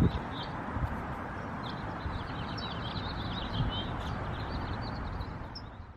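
Small birds chirping over a steady outdoor rush of wind and ambient noise, fading out near the end.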